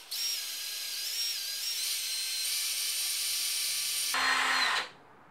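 Cordless drill spinning a cobalt HSS bit into a broken M6 bolt in a Honda NT400 engine casing, a steady motor whine with hiss whose pitch shifts slightly as it runs. Near the end it runs louder for about half a second, then cuts off.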